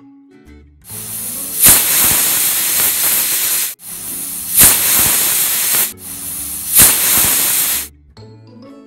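Stovetop pressure cooker's weight valve whistling three times: loud blasts of escaping steam, each swelling sharply just after it starts and lasting two to three seconds. Three whistles is the count that marks the dal and vegetables as cooked.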